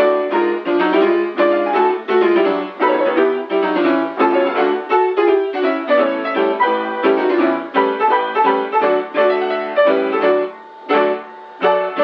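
Instrumental background music led by piano, playing a steady run of quick, evenly paced notes with a short break near the end.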